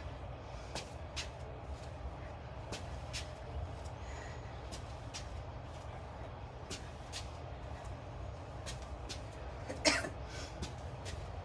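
Steady low outdoor rumble with scattered light irregular taps, and one short, sharper cough-like sound about ten seconds in.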